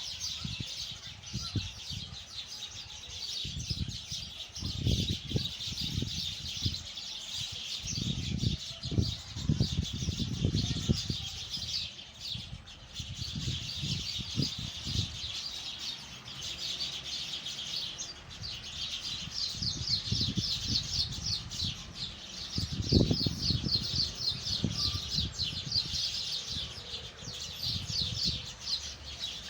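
Many small birds chirping together in a tree, a dense, continuous chatter of high chirps. Irregular low rumbles come and go underneath.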